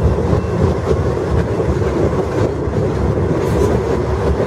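Train rolling past, a steady rumble of wheels on the rails.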